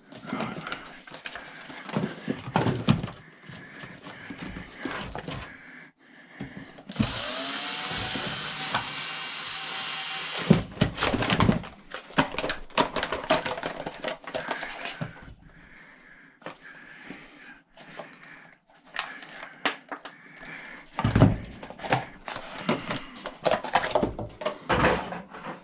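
Clicks and knocks of parts being handled while stripping a salvaged fan motor. About seven seconds in, a handheld power tool spins up and runs steadily for about three and a half seconds, then stops.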